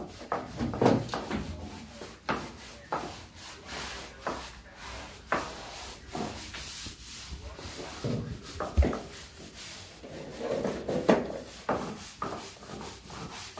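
Scrubbing a wall by hand: an irregular series of short rubbing strokes, roughly one a second, with a single knock a little past the middle.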